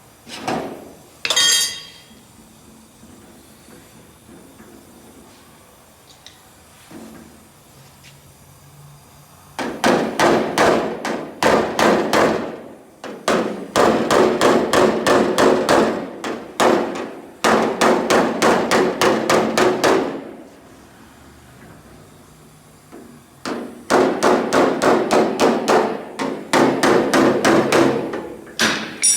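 Body hammer rapidly striking a car door's steel sheet metal, about three ringing blows a second, in several runs of a few seconds each with short pauses between, as the panel is planished flat.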